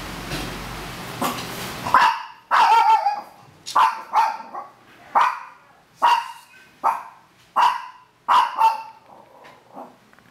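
Very young Maltese–Shih Tzu puppies whimpering: short, high, squeaky cries repeated about once a second. The cries start about two seconds in, after a steady background hiss cuts off.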